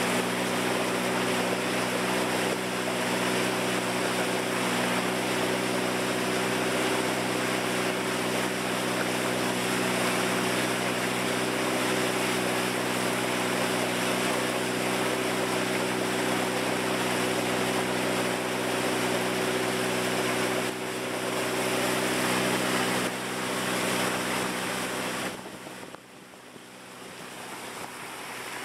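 River boat's engine running steadily at a constant pitch, under a loud rush of water along the hull and wind on the microphone. About 25 seconds in the rushing noise falls away sharply, leaving the engine fainter.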